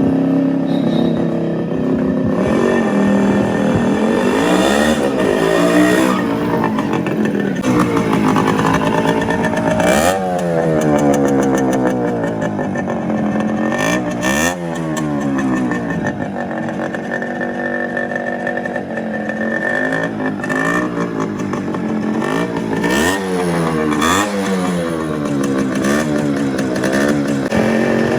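Modified Yamaha RX100 two-stroke single-cylinder engine being revved over and over, its pitch climbing and dropping with each blip of the throttle.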